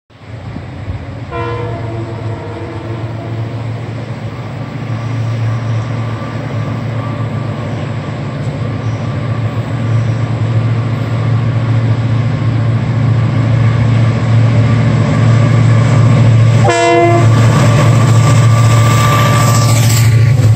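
Diesel-electric freight locomotive (TCDD DE33000, EMD 16-645E3C engine) running under load and growing steadily louder as it approaches. Its horn sounds a short chord twice: once about a second in and again, louder, near the end.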